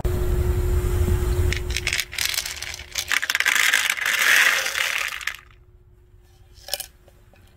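Dry cat kibble rattling and clattering as it is shaken out of a plastic cup into a clear plastic tray, for about three seconds before stopping abruptly. It follows a low rumble in the first two seconds, and a single click comes near the end.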